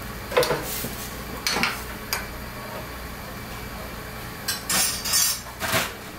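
Kitchen clatter: a handful of short clinks and knocks of dishes and pots, one about half a second in, two more around one and a half to two seconds, and a cluster near the end, over a steady low hum.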